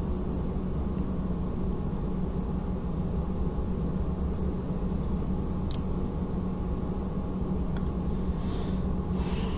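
Steady low electrical hum and hiss of the narrator's recording setup with no one speaking, with a faint click about halfway through.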